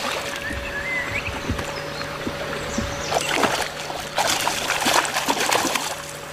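Hooked fish splashing and thrashing at the water's surface as it is played toward a landing net, with a burst of irregular splashes in the second half.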